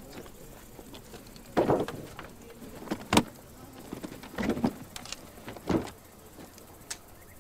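A hard-shell suitcase holding a field radio is set down on wooden planks and opened: a knock, then a sharp latch click, then several more knocks and clicks as the lid is lifted and the set handled.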